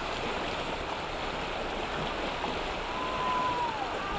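Steady rush of whitewater river rapids. About three seconds in, a brief thin tone glides and falls away.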